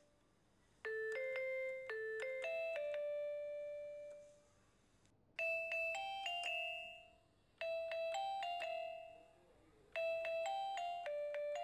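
Background music: a light melody of bell-like chiming notes, played in short phrases with brief pauses between them.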